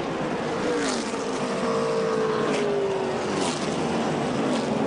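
NASCAR stock car V8 engines running, one engine's pitch sliding slowly down over a few seconds as the car slows or passes. A few brief sharp knocks stand out.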